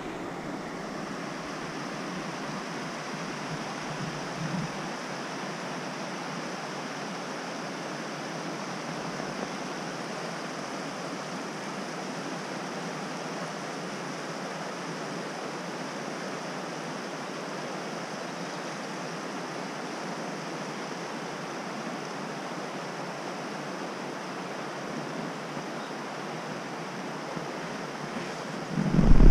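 A shallow river rushing over rocks and boulders, a steady even roar of running water.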